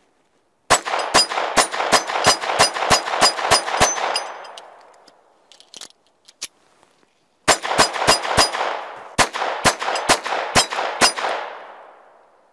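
Ruger LCP II .22 LR compact pistol fired in two rapid strings of about a dozen shots each, roughly four shots a second, with a pause of about three and a half seconds between them. The shots echo, and the echo dies away after each string.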